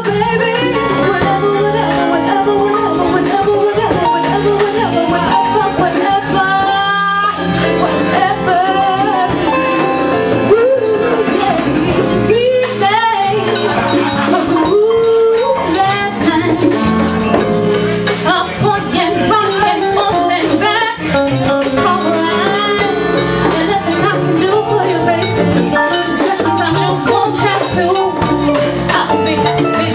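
Live band playing a Latin-tinged song: a female lead vocal over keyboard, congas, drum kit and electric bass.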